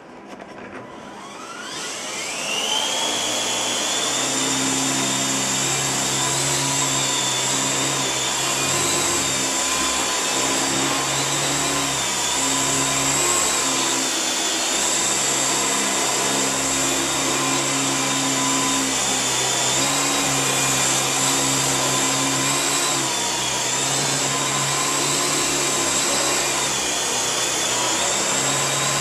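Huan Qi 852 RC helicopter's electric motors and rotors spinning up, with a rising whine over the first couple of seconds, then running at a steady high whine. Under the whine, a lower hum comes and goes as the throttle changes in flight.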